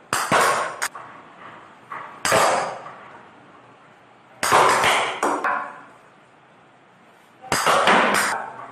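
Plastic cricket ball bouncing on a hard floor and struck by a plastic bat: sharp knocks that ring briefly in a bare room, coming in close pairs every two to three seconds.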